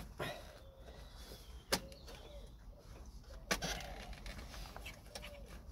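Sharp clicks and knocks of a hose and its plastic clip being worked loose beside a car's radiator fan cowling, the three loudest roughly two seconds apart. A pigeon coos faintly in the background between them.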